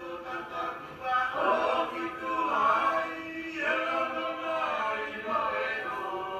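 Singing voices with music, holding long notes that change pitch every second or so, in the manner of a hymn.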